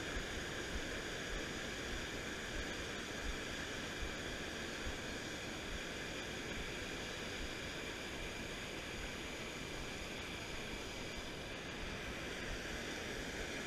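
Steady rush of water pouring over a low weir and churning through the foaming river below it.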